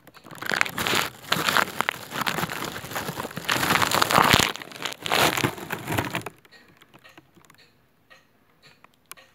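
Crackling, rustling handling noise as the recording phone is moved and settled into place, lasting about six seconds before stopping abruptly. After that only faint, regular ticking remains.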